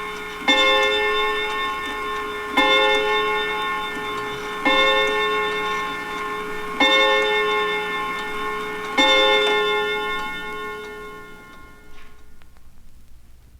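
1950s mantel clock striking the hour: five identical ringing chime strokes about two seconds apart, each decaying slowly, the last fading out near the end with a faint click after it. A faint steady hum from the vinyl recording lies underneath.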